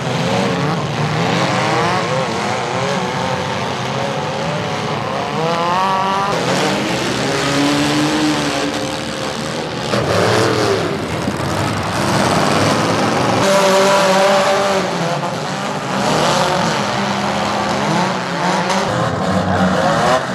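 Demolition derby cars' V8 engines revving hard, pitch rising and falling, with several sudden crunches of cars ramming each other.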